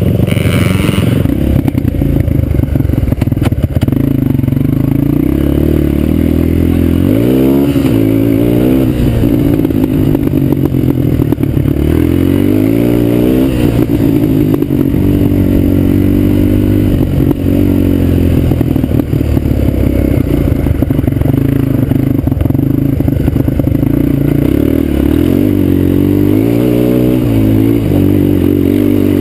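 Suzuki LT-Z250 quad's single-cylinder four-stroke engine under way on a dirt trail, its pitch climbing and dropping back several times as the rider works the throttle.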